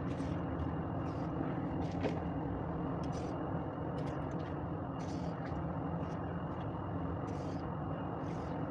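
A steady machine hum with several low steady tones, with a few faint clicks and snaps as a small knife trims the ends off green beans.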